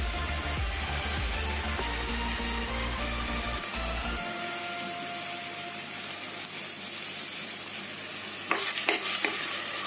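Onions, chillies and spice masala sizzling steadily as they fry in oil in a clay pot. Near the end, a wooden spatula scrapes and stirs through them in several quick strokes.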